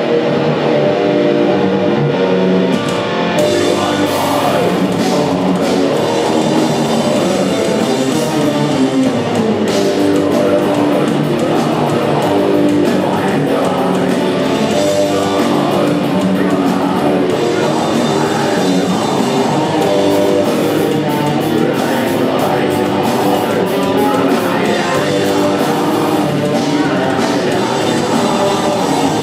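Live band playing loud rock music: electric guitars and drums with singing over them.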